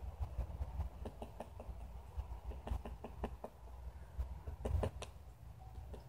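Northern flicker pecking and chiseling at a nest hole in a dead tree, irregular taps and clicks as it digs out and enlarges the cavity.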